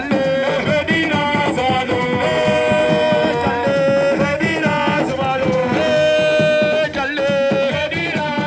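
Music: a melody of held, wavering notes, sung or played, over a quick drum beat.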